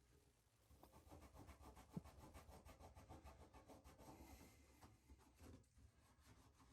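Faint, quick back-and-forth scrubbing of a non-scratch scouring pad on rusty metal, rubbing off the rust, with a single small knock about two seconds in.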